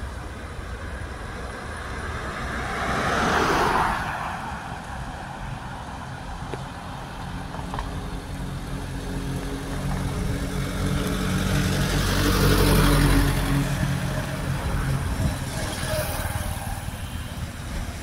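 Road traffic driving past. One vehicle goes by about three to four seconds in; a second, with a steady engine drone, builds up and passes about halfway through, and another goes by near the end.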